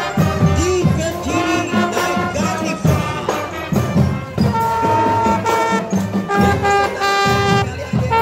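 Marching band playing: brass horns hold and move between notes over a steady drum beat.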